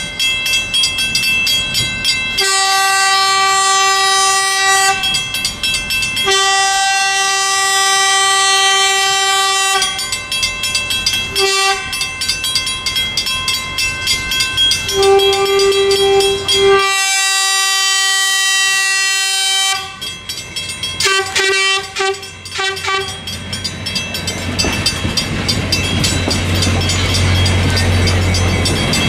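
Excursion train's air horn sounding the grade-crossing signal: two long blasts, a short one and a long one, then a few quick toots, over the steady ringing of the crossing bell. Near the end the cars roll through the crossing with a low rumble and clickety-clack of wheels on rail joints.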